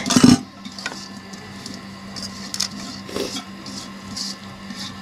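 A thump right at the start, then a series of short, soft scrapes and rustles as a hand scatters fried onion and chicken pieces over biryani rice in a large aluminium pot, over a steady low hum.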